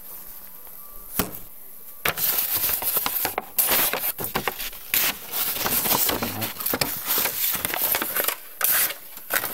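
Partly serrated OTF knife blade cutting through cardboard: a dense run of scraping, crackling cuts for about seven seconds, starting about two seconds in. A single click comes about a second in.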